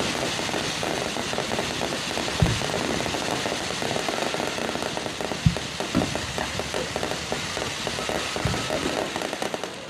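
Fireworks display: a dense, continuous crackle of rapid pops with about four heavier booms standing out above it, the sharpest about two and a half and five and a half seconds in.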